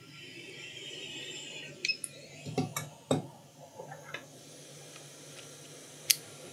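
A short hiss of air from a hot-air rework handpiece over the laptop board, then a few light plastic clicks and knocks as a laptop RAM module is fitted, ending in one sharp click near the end as the module snaps down into its slot.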